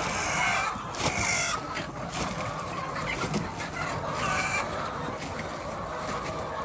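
A flock of hens clucking, with a few short, higher calls standing out over a steady background of many birds.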